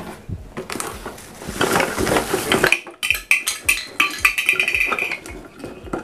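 Bubble wrap and cardboard packaging crinkling and rustling under the hands as a handheld car vacuum cleaner is pulled out of its box, with many light clicks and knocks of hard plastic.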